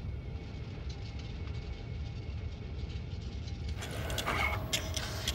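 Steady low rumble of a sci-fi film's ambient drone, with faint steady tones above it. About four seconds in, a hiss with a few sharp clicks joins it.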